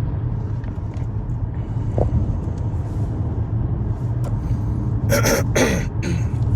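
Steady low rumble of a car running. A person gives a brief cough about five seconds in.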